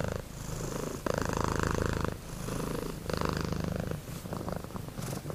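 Domestic cat purring, the purr changing with each breath in and out, about one breath a second.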